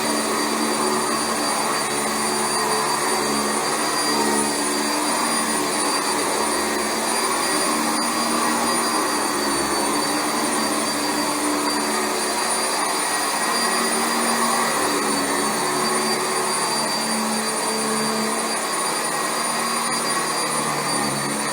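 Sanitaire SC679J commercial upright vacuum cleaner running steadily as it is pushed over carpet. A thin high motor whine sits over the rush of air.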